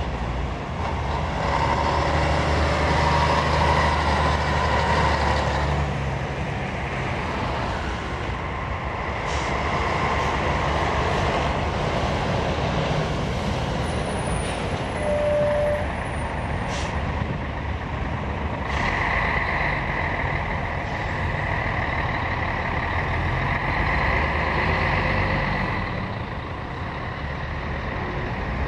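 Heavy articulated lorries passing at speed, their diesel engines and tyres making continuous traffic noise that swells and fades as each truck goes by. A brief high whistle sounds about halfway through.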